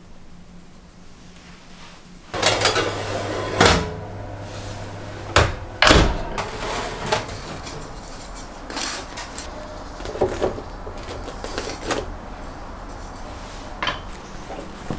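Kitchen handling sounds at an oven: a low steady hum comes on about two seconds in, followed by sharp knocks and clacks as baked bread rolls are lifted out with wooden tongs into a basket.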